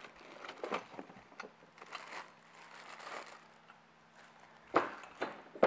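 Cardboard box and plastic parts bags rustling and crinkling as parts are lifted out of the packaging, with a few sharper knocks near the end as hardware is handled.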